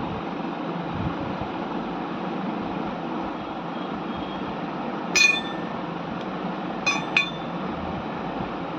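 A steady background hiss, then three sharp clinks with a brief ring: one about five seconds in and two in quick succession about seven seconds in. The clinks fit a hard water bottle being handled during unboxing.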